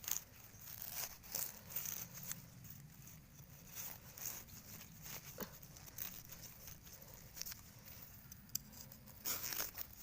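Irregular rustling and crackling of dry leaves and twigs in forest undergrowth, with scattered sharp snaps, louder near the start and again just before the end.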